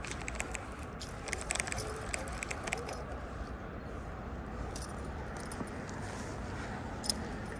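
A scatter of light clicks and rattles, thickest from about one to three seconds in, over a steady low background noise.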